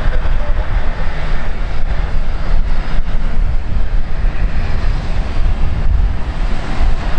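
Airliner engine noise, a steady rush, with wind buffeting the microphone as a low rumble underneath.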